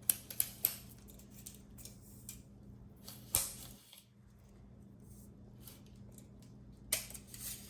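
Tape measure being handled. There are a few sharp clicks right at the start, a short rasp about three and a half seconds in, and a louder, longer rasp near the end.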